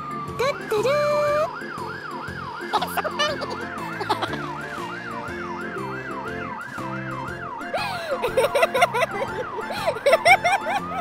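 Electronic wail siren, warbling quickly up and down about three times a second, over a background music track. A short rising whistle sounds near the start, and a run of quick chirps and clicks comes near the end.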